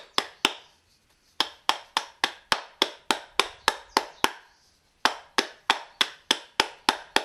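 A round wooden disc tapped down again and again onto a paper-wrapped layer of firework stars, packing them in: sharp wooden taps about three a second, in runs with a short pause about a second in and another past the middle.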